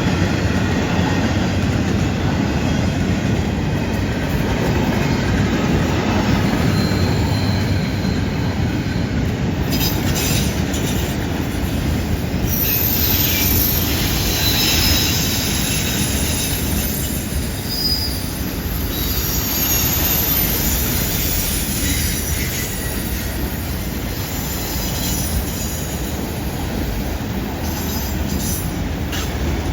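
CN freight train cars rolling past on a curve with a steady low rumble of wheels on rail. From about ten seconds in, high-pitched wheel squeal from the flanges grinding through the curve comes and goes over the rumble.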